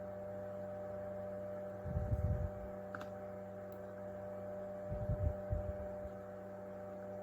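Steady electrical hum from a running fume extractor's fan, with two brief low rumbles about two seconds and five seconds in.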